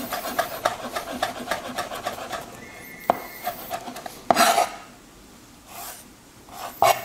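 Chef's knife chopping fast on a plastic cutting board, mincing a red chili, about five chops a second; the chopping stops about two and a half seconds in. Two louder single knife strokes on the board follow, about halfway through and near the end.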